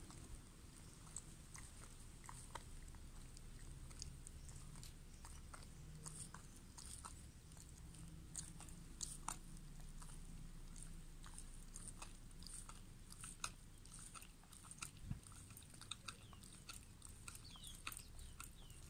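Beagle chewing a chunk of raw meat, its jaws making faint, irregular clicks and crunches a few times a second.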